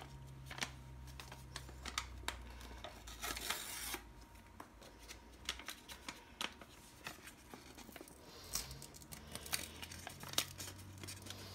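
A dry ranch seasoning packet being crinkled and tugged at while someone struggles to tear it open: scattered crinkles and small clicks, with longer rustles about three seconds in and again near the end.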